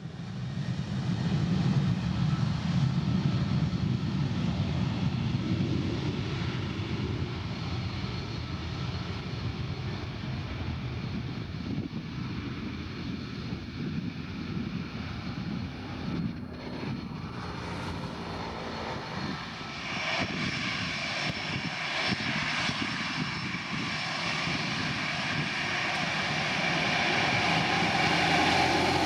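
Airplane engine noise: a deep rumble in the first several seconds that eases off, then a higher-pitched whine builds from about two-thirds of the way in and grows louder.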